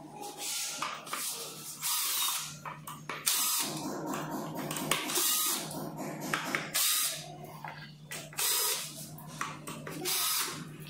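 Cordless drill/driver running in repeated short bursts, each about half a second to a second long, as it backs screws out of an electric scooter's metal deck plate.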